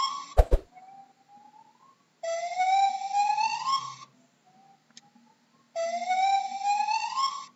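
Gibbon calling: long rising hoots, two loud ones of about two seconds each, with fainter, shorter rising notes between them. A sharp click sounds about half a second in.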